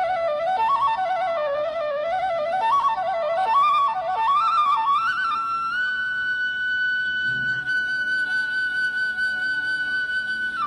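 Background instrumental music: a single wind-instrument melody winding up and down in quick ornamented turns, then climbing to one long held high note about six seconds in.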